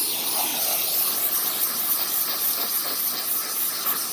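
Portland 1750 PSI electric pressure washer spraying a steady, hissing jet of water onto wooden fence boards, stripping off old stain and grime.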